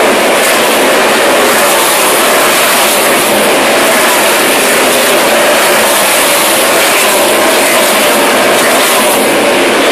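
A field of NASCAR Cup stock cars running at race speed, their V8 engines a loud, continuous wall of engine noise with a faint wavering engine note as the pack circulates the track.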